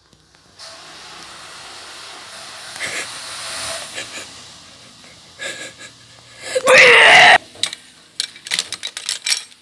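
A child's voice acting out a reaction to tasting: a long breathy wheeze lasting a few seconds, then a short loud cry about seven seconds in. Light clicks and knocks of handled toys follow.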